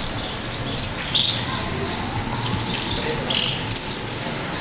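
Small birds chirping in short, high bursts every second or so, over a low steady hum of outdoor background noise.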